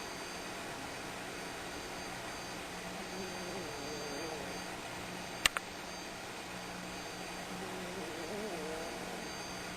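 A cat snoring, one wavering snore about every four seconds, each lasting a second or so, over a steady background hiss. A little past halfway come two sharp clicks in quick succession.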